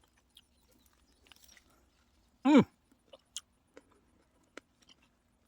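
A person chewing a fresh tomato, with faint wet mouth clicks, and one short voiced exclamation of enjoyment, falling in pitch, about two and a half seconds in.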